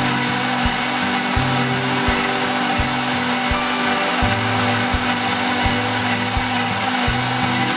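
Background music with a steady beat, over an electric blender running steadily, a dense whirring noise.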